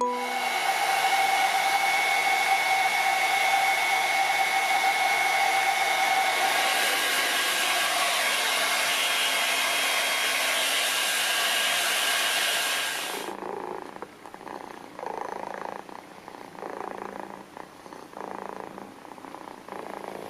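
Hair dryer running steadily with a faint whine, cutting off suddenly about thirteen seconds in; after that a kitten purring softly in even pulses.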